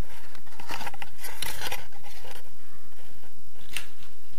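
A few short scraping and rustling handling noises close to the microphone, the loudest about a second and a half in and a sharper one near the end.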